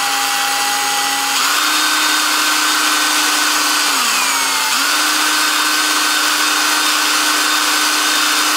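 Electric drill spinning a cylinder hone inside the oiled cylinder bore of a Briggs & Stratton engine, deglazing the cylinder wall. A steady motor whine that slows briefly about four seconds in, then speeds back up, and starts to wind down near the end.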